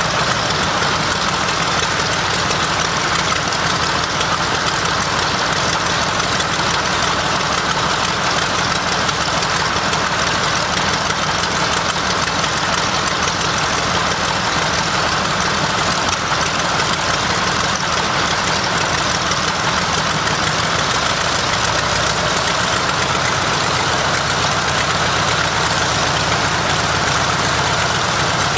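A Mitsubishi A6M Zero fighter's Nakajima Sakae 14-cylinder twin-row radial engine running steadily during a ground run.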